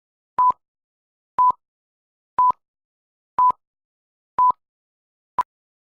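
Short electronic beeps of one steady mid-pitched tone, one each second with silence between, six in all, the last one cut short.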